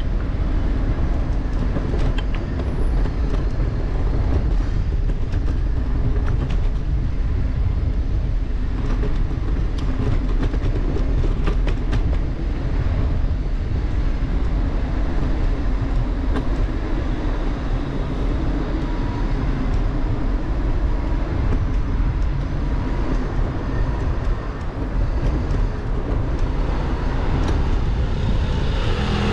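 Steady rumble of wind and road noise from riding along city streets, with light rattling clicks now and then and a louder rush near the end.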